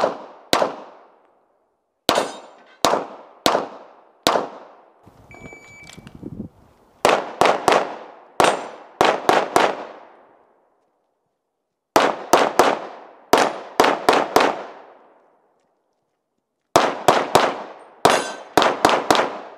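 Pistol fired in rapid strings of two to five shots with short pauses between strings, each shot trailing off in a short echo.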